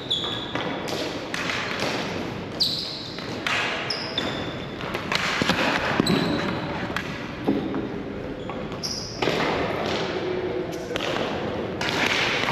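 Ball hockey game play: sneakers squeaking on the floor, sticks and ball clacking in repeated sharp hits, with players' voices calling out now and then.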